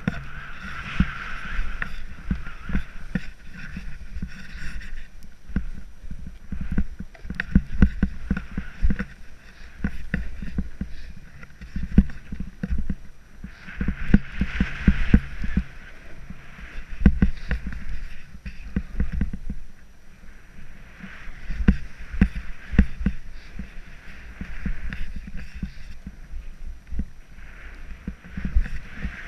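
Snowboard sliding and scraping down choppy snow, with swells of hiss as the edge cuts through the turns and irregular low thuds as the board chatters over bumps, heard close up on a rider-mounted camera.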